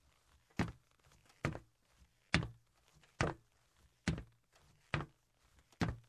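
Footsteps on a metal surface at a steady walking pace, a little over one step a second. Each step is a hard metallic impact with a brief ring.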